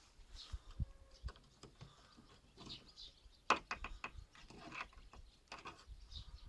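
Small metal clicks and scrapes as a knife blade pries the metal retaining clip off the ball-joint end of a car's tailgate gas strut. The clicks are sharpest in a quick cluster about three and a half seconds in, as the clip comes free.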